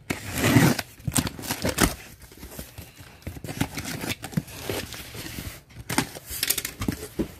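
Box cutter slicing through packing tape on a corrugated cardboard box, then the cardboard flaps scraping and rustling as they are pushed and pulled open. The loudest scrape comes about half a second in.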